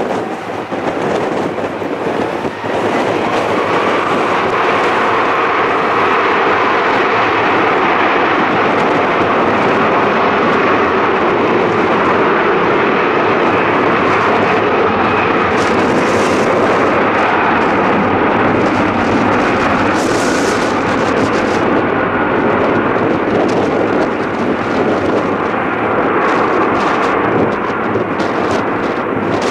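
Boeing 777's twin jet engines at take-off power during the take-off roll on a wet runway: a loud, steady roar that builds over the first few seconds and then holds as the aircraft accelerates and rotates.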